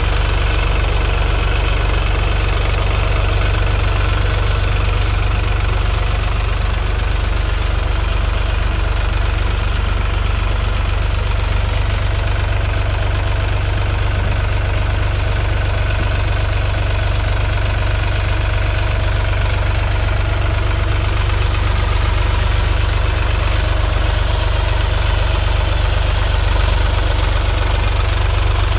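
Sonalika DI 35 RX tractor's diesel engine running steadily while the tractor climbs over a sand and rock bank.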